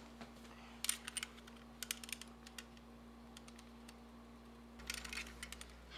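Buttons on a cell phone's keypad being pressed to key in a number: short runs of quick, faint clicks, about a second in, around two seconds in and again near the end.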